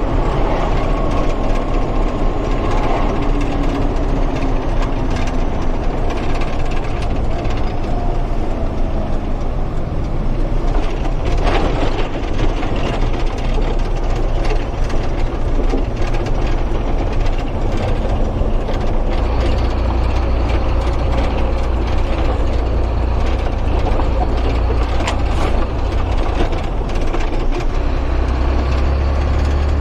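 Truck engine running as it drives, with rattling and knocking throughout; the low engine note shifts about two-thirds of the way in and again near the end.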